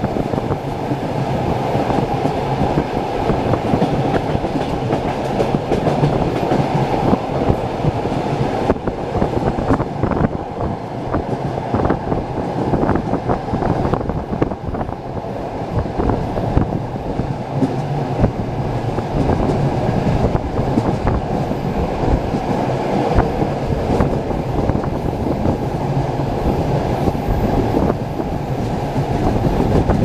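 Passenger train running at speed, heard from inside the carriage: a steady rumble of wheels on rails with frequent small knocks and clicks throughout.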